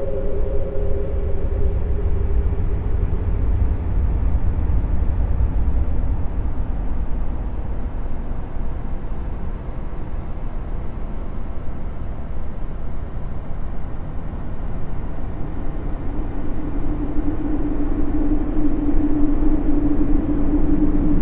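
Low, steady rumbling drone presented as a 'sound of space' for Jupiter's moon Callisto, with a humming tone that fades out in the first two seconds and a lower hum that swells in during the last few seconds.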